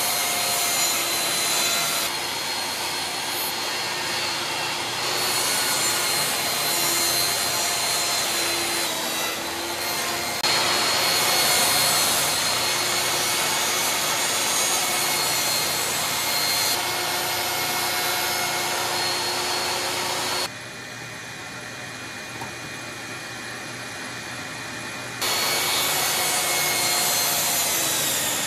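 Table saw running and cutting plywood: a steady motor whine under the rasping noise of the blade going through the sheet. About two-thirds of the way through, the sound drops to a lower level for about five seconds, then comes back at full strength.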